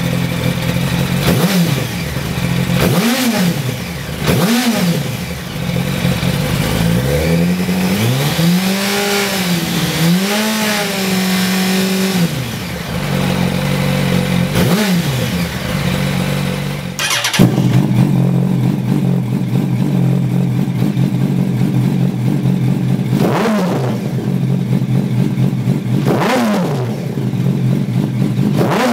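2007 Yamaha YZF-R1's inline-four engine idling and being revved through its standard underseat exhausts: three quick blips of the throttle, then two longer held revs and another blip. About 17 seconds in, the same engine runs through aftermarket Lextek MP4 stainless slip-on silencers, idling with quick blips near the end.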